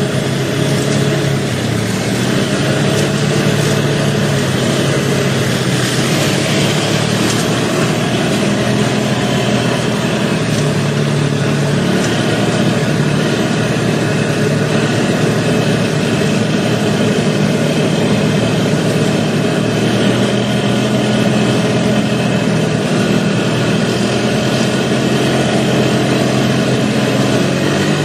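ATV engine running under way, its pitch rising and falling as the throttle changes.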